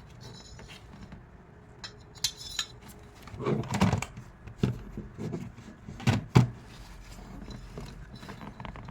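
Metal clinks and knocks of tools and battery hardware being handled as a car battery cable is hooked up, with a few sharper knocks about four and six seconds in.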